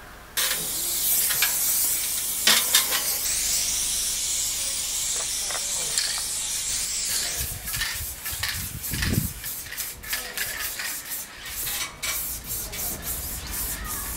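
Aerosol spray-paint can hissing as paint is sprayed onto a wall: one long continuous spray for about seven seconds, then a run of short spray bursts.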